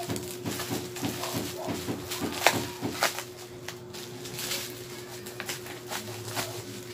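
Plastic bubble wrap crinkling, with irregular sharp snaps and clicks as scissors cut and tear through it, over a steady low hum.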